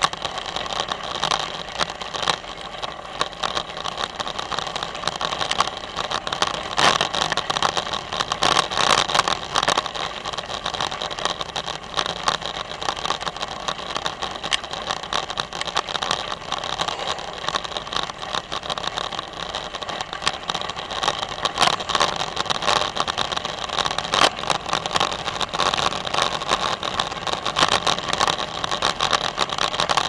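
Bicycle tyres rolling over a crushed-gravel trail: a steady, gritty crunching and crackling noise.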